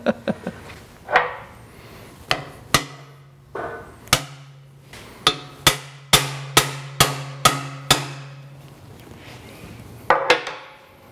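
Hammer blows on a cam bearing installation tool, driving a cam bearing into its bore in an engine block: about a dozen sharp metal strikes with a ringing after each, coming about two a second in the middle, then stopping, with one last strike near the end.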